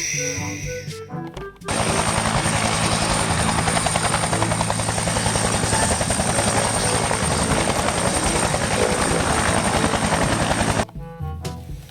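A loud whirring, rapidly pulsing mechanical noise with a thin high whine, starting abruptly about two seconds in and cutting off sharply near the end, over light background music.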